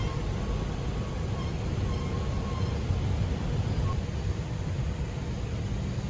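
Steady low rumble of city traffic, with a few faint short high chirps over it.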